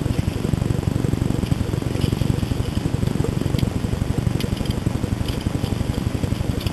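Steady low engine rumble with a fast, even pulse, and a few faint light clicks over it.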